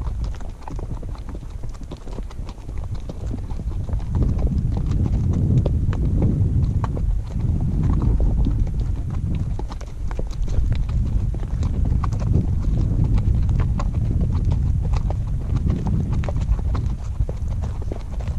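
Horses walking on a dirt trail, their hooves clip-clopping unevenly, heard from the back of one of the horses. Under the hooves runs a steady low rumble, with many small irregular clicks.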